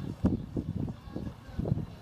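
Wind buffeting the microphone and water washing along the hull of a small sailboat under sail, coming in uneven gusts, with one short click about a quarter of a second in.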